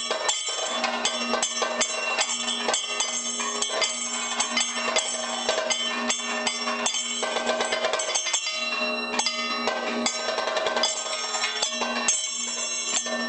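Kathakali percussion accompaniment with no singing: a maddalam barrel drum struck in quick, dense strokes over ringing hand cymbals and gong, with a steady held tone underneath.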